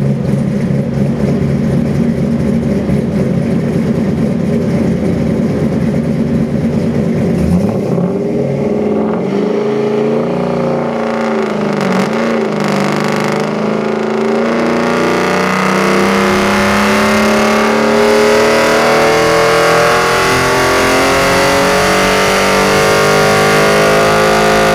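Chevy LS 327 V8 crate engine with a hydraulic roller cam, running on an engine dyno and heard through its two tall exhaust stacks. It runs steadily at first, the revs rise and fall a few times, then from about halfway it makes a long pull with the revs climbing steadily to the end.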